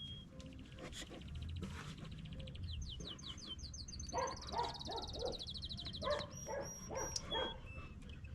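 A dog whining and yipping in short repeated cries, with birds chirping and trilling.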